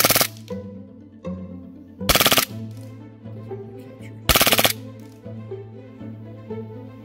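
VFC Glock 18C green-gas blowback airsoft pistol firing on full auto: two rapid-fire bursts of under half a second each, about two seconds apart, with the tail of another burst right at the start.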